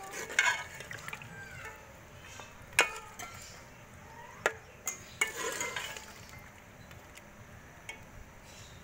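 A steel ladle stirs a watery chicken curry in an aluminium pot: the liquid sloshes, and the ladle clinks sharply against the metal pot a few times, once about three seconds in and several times close together around the middle.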